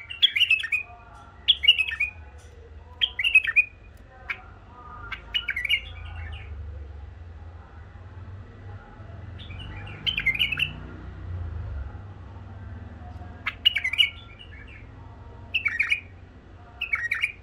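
White-eared bulbul singing a series of short, quick warbled phrases, about eight in all. They come close together for the first few seconds, pause, and then start again toward the end.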